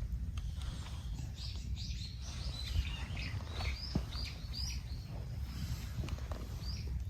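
Garden birds chirping: a quick run of short, high chirps, each sliding downward, through the middle of the stretch, over a steady low rumble.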